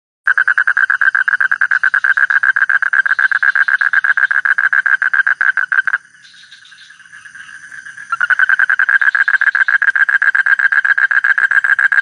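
A toad calling with its vocal sac puffed out: a loud, rapid pulsed trill held at one pitch. It breaks off about six seconds in and starts again about two seconds later.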